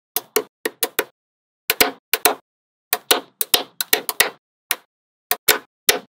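Small magnetic balls clicking sharply as they snap together one by one, about twenty crisp clicks in irregular clusters with silence in between.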